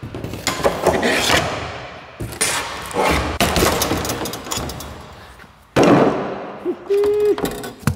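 Hammer and pry bar working at the lid of a plywood shipping crate: a run of sharp knocks, cracks and creaks of wood and nails, with the loudest crack about three-quarters of the way through.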